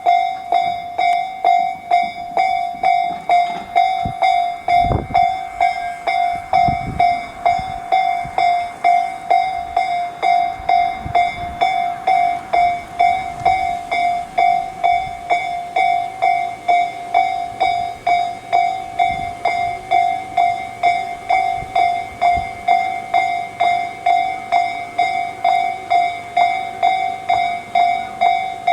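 Japanese level-crossing electronic warning bell of the Tobu Tojo Line type, ringing steadily at about two dings a second.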